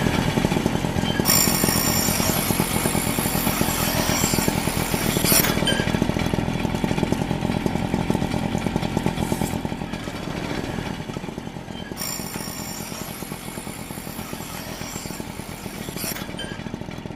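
Tactical knife blade being sharpened: a steady, rapid grinding runs throughout. High ringing squeals join it twice, about a second in for some four seconds and again about twelve seconds in.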